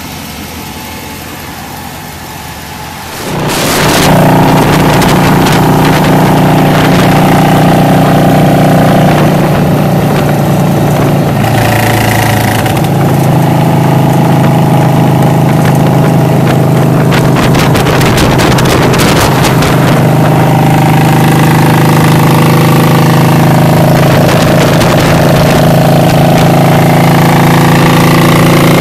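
Motorcycle engine running steadily at highway speed, heard from a moving bike with wind rushing over the microphone. It comes in suddenly and loud a few seconds in, after quieter sound, and its note shifts briefly partway through.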